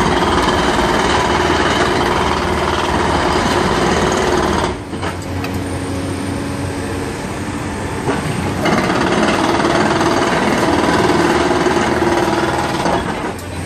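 Hydraulic breaker on a Cat 320D excavator hammering concrete in two long bouts. There is a break of about four seconds, starting about five seconds in, while the excavator's engine keeps running.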